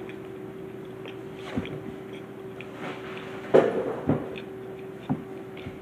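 Quiet room tone with a steady low hum, broken by a few soft knocks and taps, the most distinct about three and a half seconds in.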